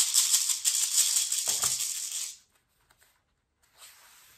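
A shaker rattled rapidly and steadily, a dry hiss of beads, stopping a little over two seconds in.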